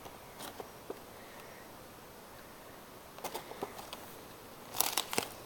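Quiet room with a few short clicks and rustles of handling: a couple in the first second, a small cluster in the middle and a louder burst near the end.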